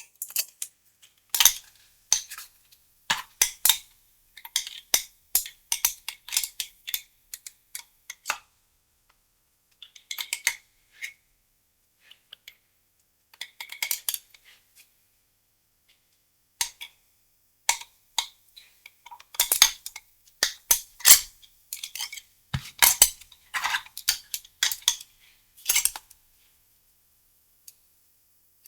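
Lung sounds heard through a stethoscope: discontinuous crackles, sharp clicks coming in bursts of one to a few seconds with silent gaps between, and a longer, denser run of them in the second half.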